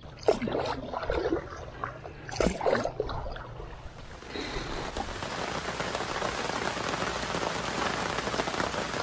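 A few short voice-like sounds in the first three seconds, then steady rain of a quick shower sets in about four seconds in and keeps falling.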